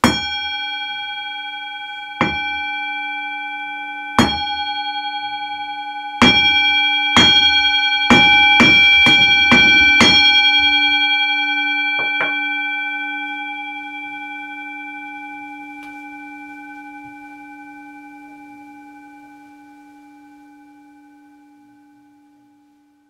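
Metal singing bowl struck with a mallet, ringing with a low hum and several higher overtones. The first strikes come about two seconds apart, then a quicker run about half a second apart, and a last lighter strike. The ring then fades slowly away near the end.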